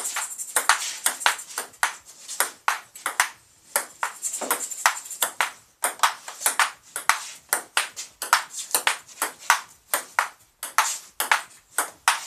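Table tennis rally: a ping-pong ball clicking back and forth off the paddles and the table, a quick run of sharp taps with a few brief pauses between points.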